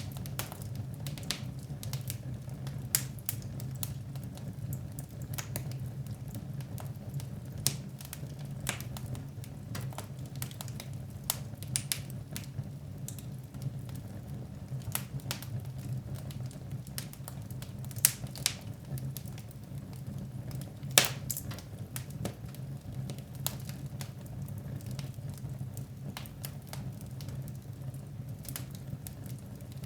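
Wood fire in a fireplace crackling, with irregular sharp pops and snaps over a low steady rumble, and a couple of louder pops in the second half.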